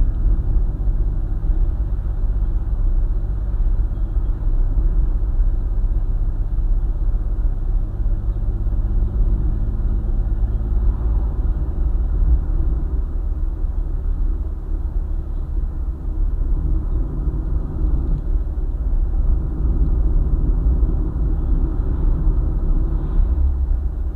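A car driving on a highway: a steady low rumble of engine and tyre noise on the road. The engine note changes about halfway through.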